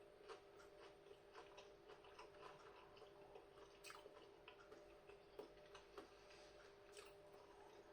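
Near silence with faint, irregular small clicks of a person chewing a breaded chicken burger in a soft bun, over a steady faint hum.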